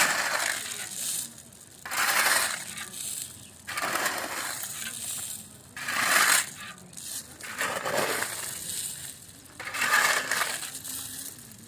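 Repeated gritty crunching and scraping strokes, one every second or two, from manual construction work.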